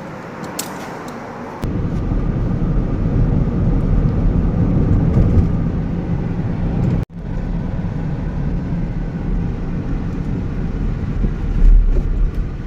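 Toyota Camry running, a steady low rumble that comes in abruptly about one and a half seconds in and cuts out for an instant about seven seconds in.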